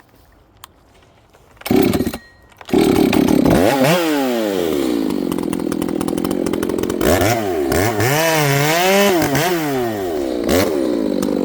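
Ported Echo CS-590 two-stroke chainsaw engine bursting into sound just under two seconds in, cutting out briefly, then running loud from under three seconds in. Its pitch drops and rises several times as the revs change.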